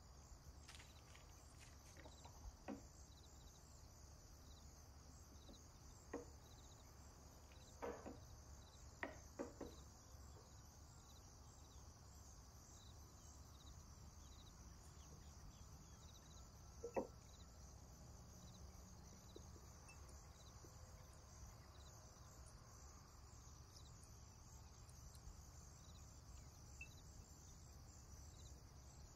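Near silence: a faint steady high hiss with a soft regular pulse, and a handful of soft knocks from a wooden rolling pin and a steel cutter on a wooden board, the loudest a little past halfway.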